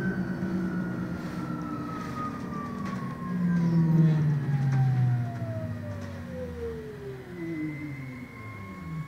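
Electric drive whine of a MAN Lion's City Hybrid bus, heard from inside the cabin, falling steadily in pitch from high to low as the bus slows for a stop. A low rumble under it swells for a couple of seconds about three seconds in.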